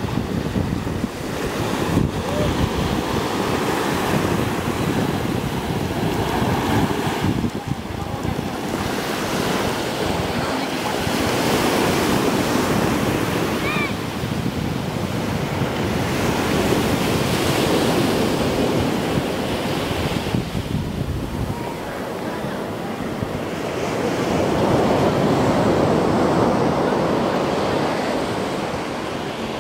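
Sea waves breaking and washing up a sandy beach, the rush of surf swelling and fading every several seconds, with wind rumbling on the microphone.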